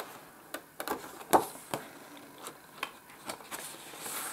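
Pages of a spiral-bound colouring book being turned by hand: a scatter of short paper clicks and taps, with a light rustle of the sheet near the end.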